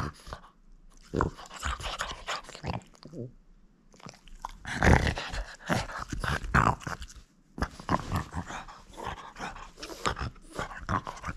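French bulldog chewing and gnawing a textured ring toy up close: irregular crunching and clicking bites, broken by short pauses, the loudest bout about halfway through.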